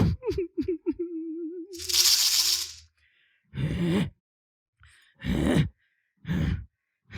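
A puppeteer's voice making a long, wavering yawn, then short breathy snores about a second apart. A brief rattling, hissing burst about two seconds in.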